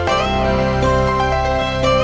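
Background music: a plucked-string melody over a sustained bass, with notes changing about every half second.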